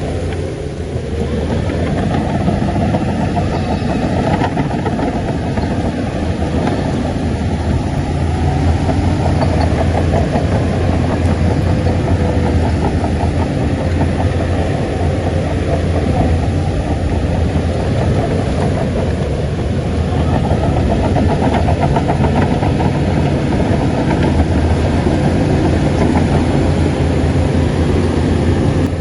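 Shantui bulldozer's diesel engine running steadily under work, growing louder about two seconds in.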